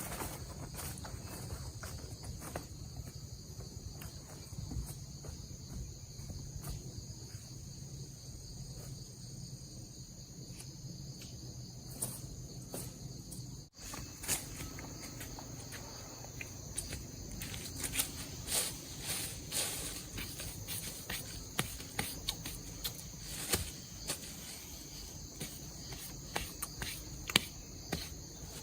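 Steady high-pitched chorus of rainforest insects, with frequent short clicks and rustles over it and a momentary dropout about halfway through.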